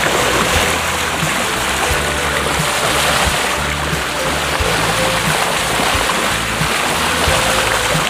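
Background music with low held notes changing every half second or so, over a steady rushing wash of seawater and spray.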